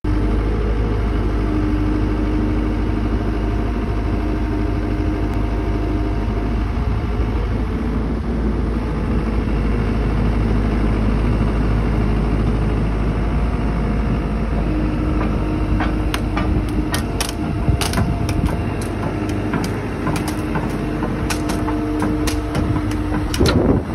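Engine of the loader holding the log, running steadily with a low drone and a whine that comes and goes. From about two-thirds of the way in there are scattered sharp clicks and knocks.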